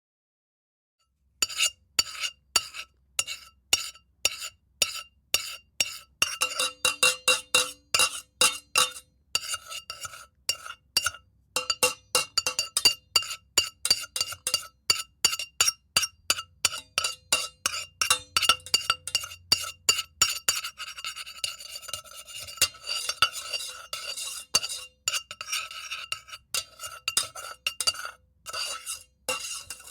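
A metal cooking pot being scraped in quick repeated strokes, each one setting the pot ringing with a few steady metallic tones. It starts about a second and a half in, and the strokes come faster and run together into more continuous scraping in the second half.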